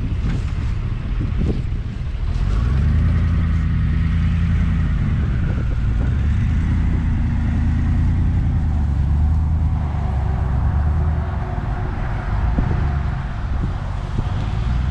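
Pickup truck engine running while towing a loaded trailer slowly, picking up about two seconds in and then holding steady.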